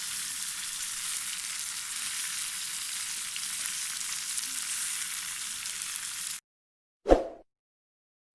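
Food frying in a pan: a steady sizzle that cuts off suddenly about six seconds in. A single short loud thump follows about a second later.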